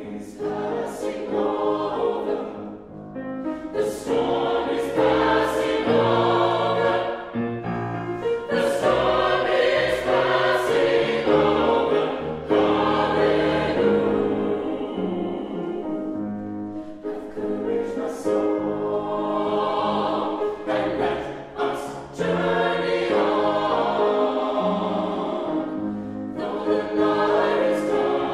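Mixed chamber choir singing a gospel choral piece in parts, phrase after phrase with short breaks between them.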